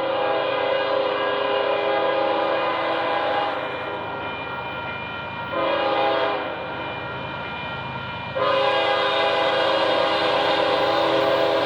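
Union Pacific AC45CCTE freight locomotive's multi-chime air horn sounding a long blast, a short blast about five and a half seconds in, then another long blast from about eight and a half seconds in, over the low rumble of the passing train.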